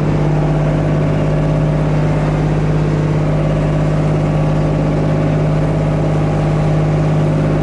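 Boat engine running steadily: a constant, loud hum with a strong low tone and its overtones.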